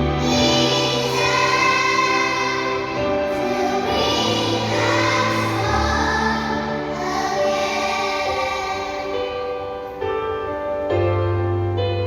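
Choir singing in long held chords that change every second or two.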